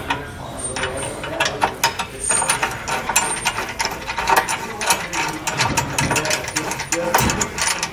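A ratchet wrench clicking rapidly as a hex nut is run onto a base-plate mounting bolt.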